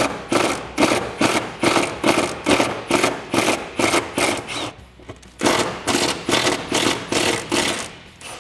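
Battery-powered Milwaukee M18 impact wrench with a 10 mm deep socket, hammering in short repeated bursts about two a second, with a short pause about five seconds in, as it runs the nuts off the parking brake cable studs.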